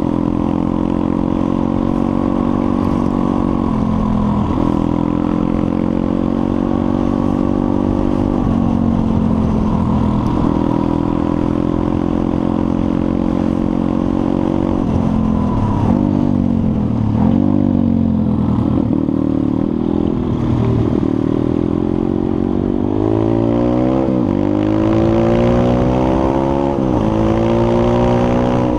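Pit bike's small single-cylinder engine running under way, heard from the rider's own bike. The pitch drops a few times as the throttle is eased or a gear is changed, and in the second half it rises again and again as the bike accelerates up through the gears.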